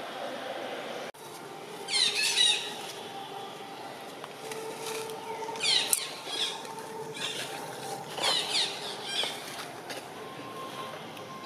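High-pitched animal calls in several bursts of quick descending notes, about two seconds in, around six seconds, and again from about eight to nine seconds, over an open-air background.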